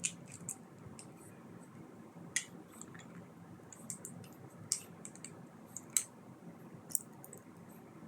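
Plastic LEGO pieces clicking and tapping as they are handled and pressed together: about six sharp, short clicks at irregular intervals of one to two seconds.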